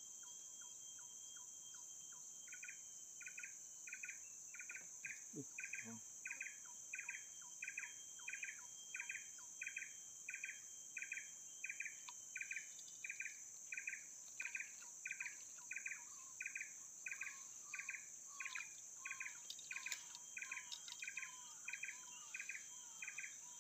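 Insects buzzing in a steady high-pitched drone, joined a couple of seconds in by a short chirping call repeated about three times every two seconds.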